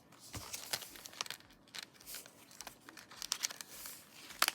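Crinkling and rustling of planner inserts as they are handled and pushed into a tight zip folio planner cover. A scatter of irregular small clicks is heard, with a louder cluster near the end.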